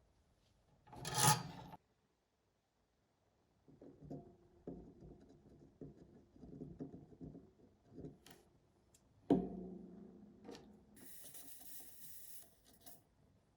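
Hand rubbing and scraping strokes of abrasive work on a small metal part, irregular and uneven. Near the start there is one short loud scrape, and about nine seconds in a sharp knock rings briefly. A short hiss follows near the end.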